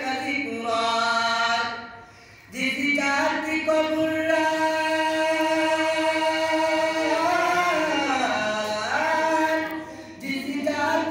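Man singing a Bengali gazal unaccompanied, holding long notes for several seconds and sliding from one pitch to the next. He breaks off briefly for breath about two seconds in and again near the end.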